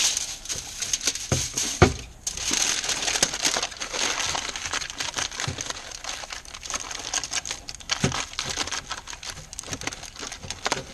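Aluminium foil being crinkled and pressed by hand around the end of a pipe, in irregular crackles with a couple of sharper knocks.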